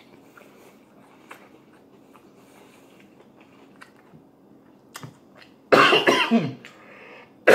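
A man coughing into his fist while eating, twice near the end, after several quiet seconds with only faint small clicks of chewing.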